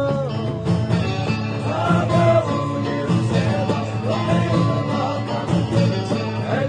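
Music with a singing voice over instruments and a steady rhythmic beat.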